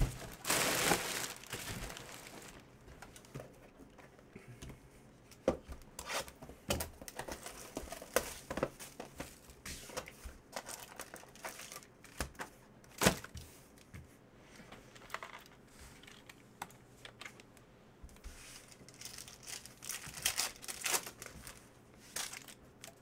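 Trading-card packs being opened by hand: wrappers crinkling and tearing, with a longer rip about half a second in, scattered taps and clicks of packs and cards being handled, and more crinkling near the end.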